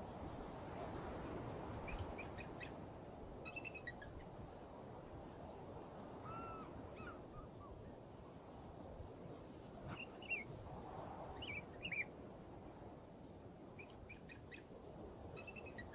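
Birds chirping now and then, in short high calls that come in small clusters a few seconds apart, over a steady low background noise.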